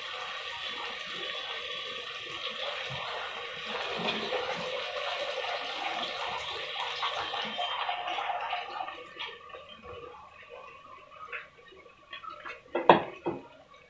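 Sliced onions frying in hot oil in an aluminium pressure cooker, a steady crackling sizzle that dies down after about eight seconds. Near the end come a few sharp clatters, the loudest about a second before the end.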